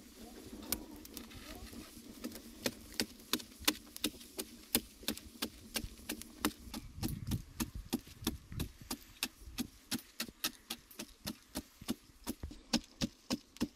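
A bamboo-handled digging tool striking hard clay soil in quick repeated strokes, about three a second, each a sharp knock.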